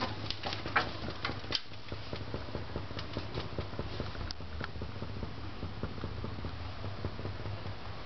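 Homemade 6-magnet, 12-coil VEGA magnet-and-coil generator running: a low steady hum under fast, dense ticking, with a few sharper clicks in the first second and a half.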